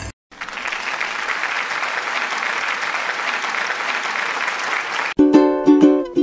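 Applause, as an even patter, lasting about five seconds, then plucked ukulele music starts abruptly near the end.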